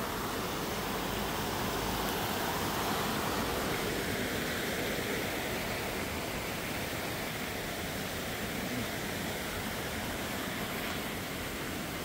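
Steady rush of water cascading over rocks in a small woodland waterfall and rapids, a constant even hiss.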